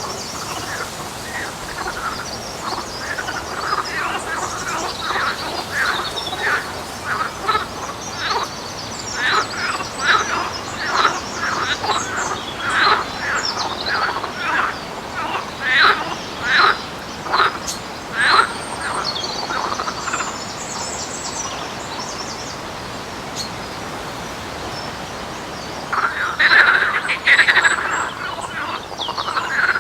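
A long series of short, repeated animal calls from an unidentified wetland creature, about two a second, building up through the middle. After a brief lull they come back loudest near the end.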